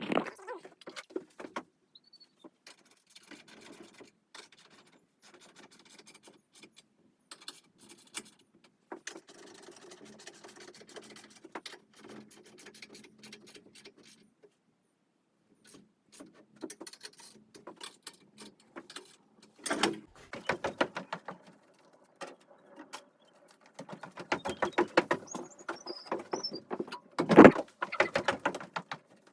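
Irregular clicks, taps and rattles of an Alaskan chainsaw mill's frame and fittings being handled and adjusted, with a short clatter about twenty seconds in and a single louder knock near the end. No saw is running.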